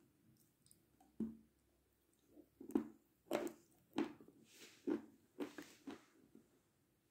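Close-up chewing and lip smacks from a mouthful of runny white chocolate mixture, heard as a string of short wet clicks.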